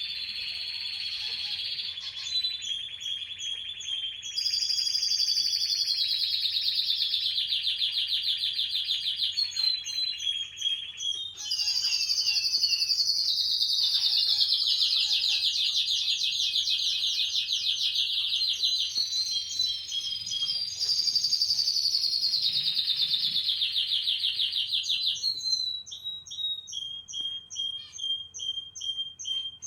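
Domestic canary singing: long runs of rapid trills and rolls, each phrase stepping down in pitch, breaking into a string of separate short repeated notes near the end.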